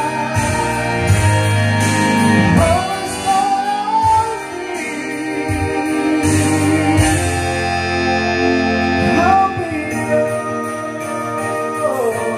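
Karaoke song track played by a Platinum Cello 2 karaoke player: a pop ballad accompaniment with a lead melody that slides between notes. It moves into the instrumental interlude near the end.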